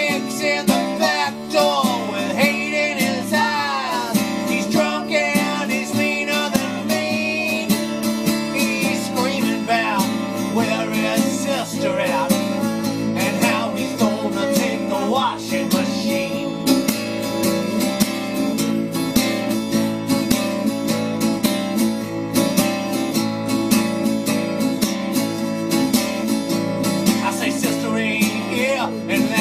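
Folk-rock instrumental break: a strummed acoustic guitar keeps the chords going while a lead line plays over it in bending, sliding notes, busiest in the first half.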